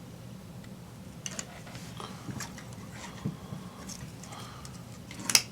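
Faint clicks and taps of small plastic parts being handled as a Blade 120 SR tail boom is worked into its frame, with one sharp click near the end.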